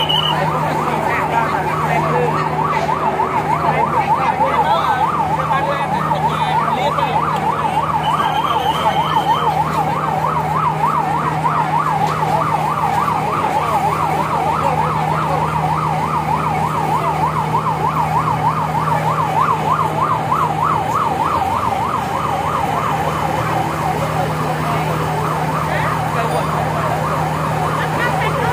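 Fire engine siren sounding a fast warble, rising and falling several times a second, with a steady low drone under it that stops about three quarters of the way through.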